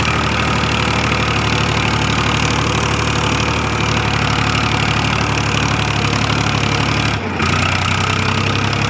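Powertrac Euro 50 tractor's diesel engine running steadily as the tractor drives along. About seven seconds in the sound dips briefly and the engine note then shifts.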